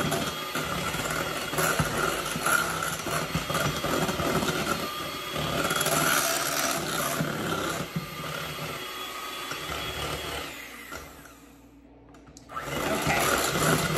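Electric hand mixer running steadily, its beaters whipping heavy cream and powdered sugar in a glass bowl toward stiff peaks. The mixer sound dies away for about a second near the end, then starts again.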